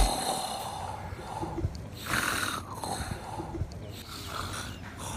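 A man snoring: several rough, noisy snoring breaths.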